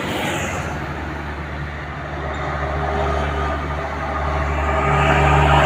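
Heavy road vehicle's engine running with a steady low rumble as it approaches, growing louder toward the end.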